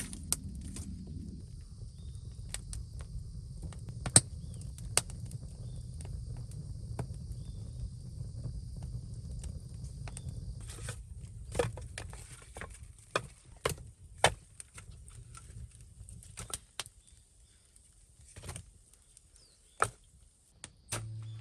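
Irregular sharp knocks and taps of hand work in earth and stone, over a steady low rumble that fades out about three quarters of the way through.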